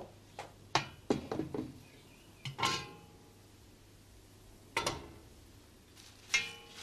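Kitchen clatter: a string of irregular knocks and clinks of pots, pans and utensils being handled, three of them ringing briefly like metal.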